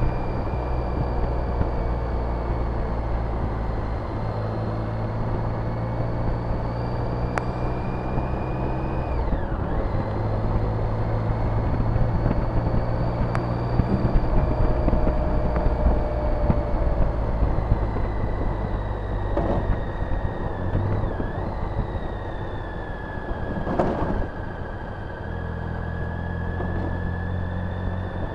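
BMW K75's three-cylinder engine running as the motorcycle is ridden at low road speed, with wind rush over the microphone and a high whine above the engine note. The engine note dips briefly about ten seconds in and again around twenty seconds, and a single short knock comes late on.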